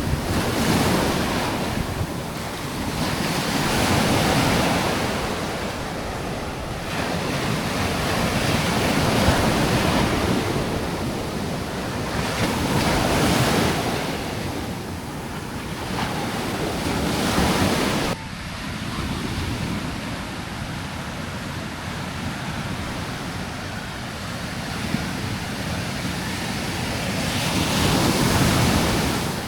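Bay of Bengal surf breaking on a sandy beach, swelling and fading every few seconds, with wind on the microphone. The sound drops suddenly about eighteen seconds in.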